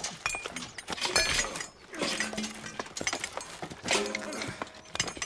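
Iron chains clinking and jangling as shackled prisoners move: a run of irregular, sharp metallic clinks, some with a short ring.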